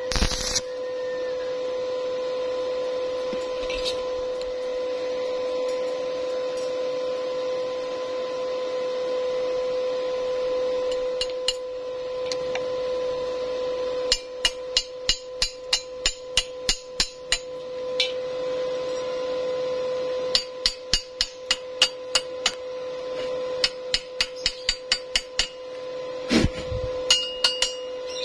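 Hammer strikes on steel, typical of a chipping hammer knocking slag off a stick weld on square tube. A steady electrical hum runs throughout; from about halfway the strikes come in three quick runs of about three to four taps a second, with a heavier knock near the end.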